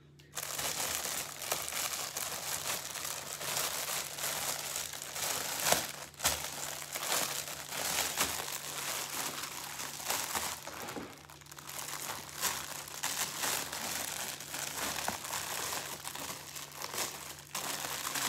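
Plastic packaging crinkling and rustling as a garment is handled and unwrapped from its bag, continuous with a sharper crackle about six seconds in.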